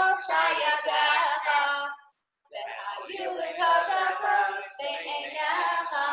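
A woman singing a song, heard over a video call. The sound cuts out completely for about half a second, about two seconds in, then the singing carries on.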